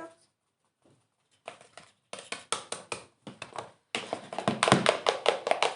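Stirring a glue and shaving-foam slime mixture in a bowl, as quick wet clicks and squelches. The strokes come faster and louder about four seconds in.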